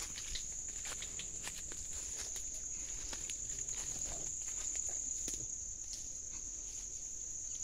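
A steady, high-pitched insect drone, with irregular crackles and rustles of footsteps through dry leaf litter and twigs.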